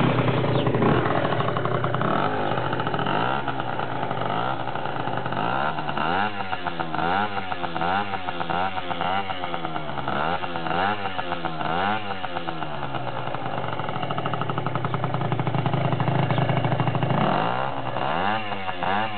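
Two-stroke 50cc scooter engine breathing through a Gianelli Extra Chrome aftermarket exhaust, revved in repeated quick blips, each rising and falling in pitch about once a second. In the middle it is held at steady revs, and near the end the blips start again.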